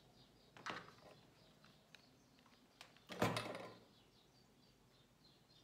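Soft handling noises from working a small fabric-and-lace doll piece: a brief rustle about half a second in and a louder scuffing bump about three seconds in, with a few light clicks between them. Faint bird chirps run in the background.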